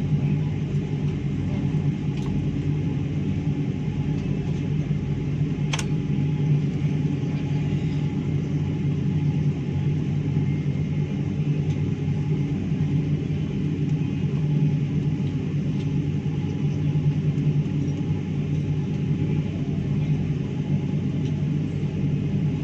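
Steady low rumble inside the cabin of a taxiing airliner, its engines at idle. One sharp click about six seconds in.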